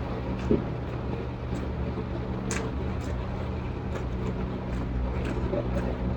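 Eating sounds during a mukbang: scattered short mouth clicks and smacks from chewing, over a steady low hum.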